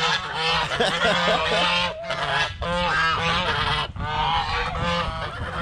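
A flock of domestic geese honking, many loud calls overlapping one another with only brief pauses.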